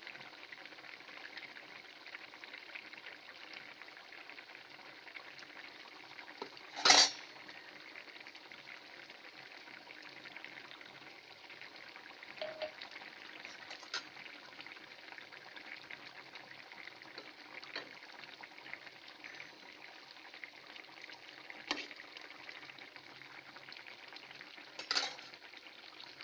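Potol and rohu fish curry bubbling and sizzling in a pan, a wooden spatula stirring it. A sharp knock about seven seconds in, and a few lighter clicks later.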